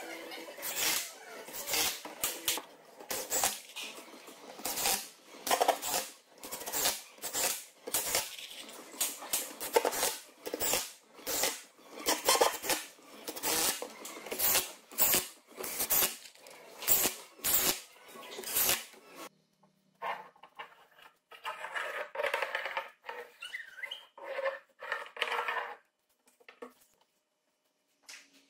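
Cordless drill-driver driving screws into wooden boards, in a quick run of short repeated bursts about one to two a second. Fainter scattered sounds follow about two-thirds of the way through.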